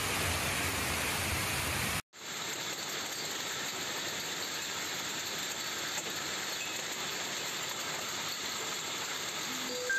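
Steady hiss of a heavy downpour. About two seconds in it cuts out for a moment, then resumes as the steady hiss of rain and hail falling.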